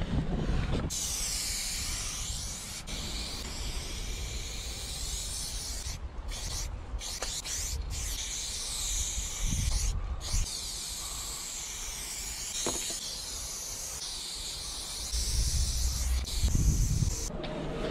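Aerosol spray-paint can hissing steadily as paint is sprayed, cut by four short breaks a third to halfway through where the nozzle is let go. A low rumble swells near the end.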